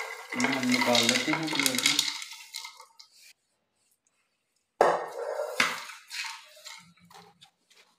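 Popped popcorn poured out of a steel pot onto a ceramic plate: the kernels rustle and the pot clinks and scrapes against the plate. Near silence for a second or so around the middle, then another burst of clatter and knocks as the pot is knocked empty.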